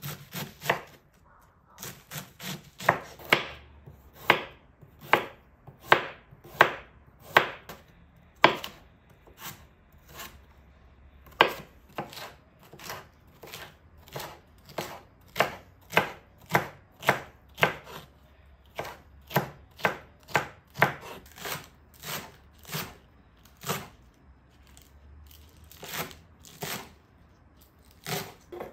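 Chef's knife chopping crisp vegetables (cabbage, red pepper, spring onion) on a bamboo cutting board: sharp knocks of the blade hitting the board, about one or two a second and unevenly spaced, with a couple of short pauses.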